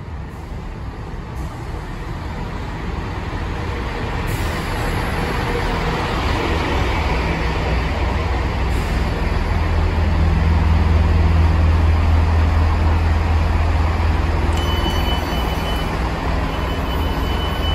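Chiltern Railways Class 165 diesel multiple unit arriving at the platform, its diesel engines droning low and growing louder as it pulls in and stops. Near the end a steady high tone starts abruptly as the doors are released.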